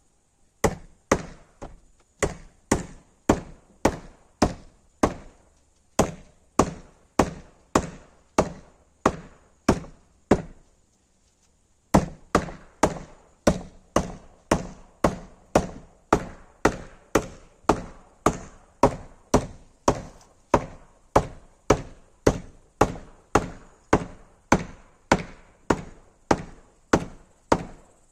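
Steady hammering, about two sharp blows a second, with a short break about ten seconds in before the blows resume at the same pace.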